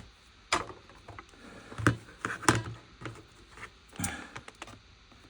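Stiff plastic retail packaging being handled and turned over: a few irregular clicks and taps with light crinkling.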